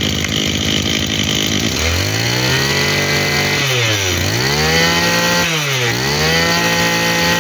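Mazuyama 26 cc two-stroke brush cutter engine running after a fresh start. From about two seconds in, the throttle is opened and released in cycles, and the engine note climbs and falls back about every two seconds, three times. This is a compression and power check, with the seller calling the compression good.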